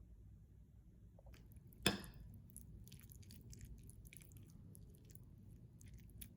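A person biting and chewing crunchy food close to the microphone: one sharp snap about two seconds in, then a run of small crackling chewing sounds.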